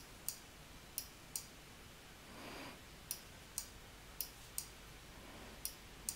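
Computer mouse clicking, about nine sharp single clicks at uneven intervals while a gradient fill is adjusted in Illustrator.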